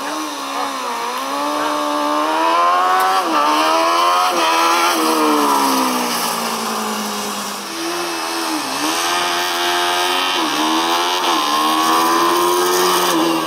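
Formula Student race car engines revving hard as the cars accelerate, the pitch climbing and falling back sharply at each gear change, several times over. A different car takes over about eight seconds in.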